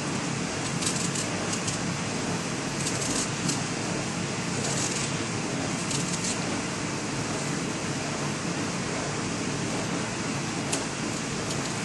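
Crisp scraping strokes of a blade peeling a Granny Smith apple, the peel coming off in one long ribbon. The strokes come irregularly, a second or a few apart, over a steady background hiss and hum.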